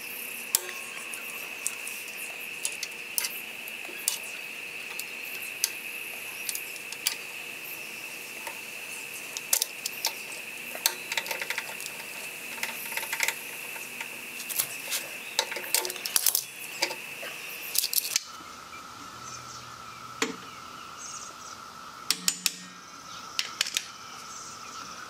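Small steel parts clicking and clinking in quick, irregular taps as a spacer and spring washers are worked onto a motorcycle floorboard bracket pin with hand tools, in a sped-up stretch. A steady, high insect drone runs underneath and drops to a lower pitch at a cut about 18 seconds in.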